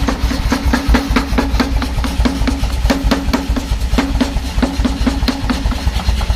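Pneumatic air forging hammer striking in rapid repeated blows, about four a second, over the steady low hum of its drive.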